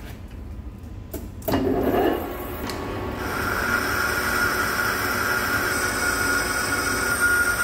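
Centre lathe turning a high-tensile steel piston blank while an indexable insert tool cuts at the bore. A short low clatter comes about a second and a half in. From about three seconds the cut settles into a steady high-pitched ringing tone with a hiss above it.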